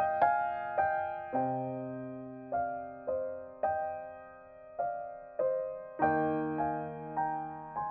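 Background music on solo piano: slow single notes and chords, each struck and left to ring and fade, with a fuller chord about six seconds in.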